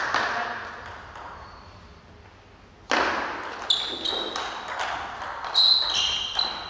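Table tennis rally: the ball clicks against paddles and table in a quick, irregular run of sharp ticks, with a hall echo. It starts about three seconds in, after a loud burst at the start and a short lull.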